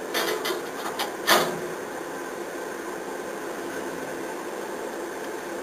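A few sharp clicks and knocks in the first second and a half as the kerosene heater is handled and lit, over a steady background hum.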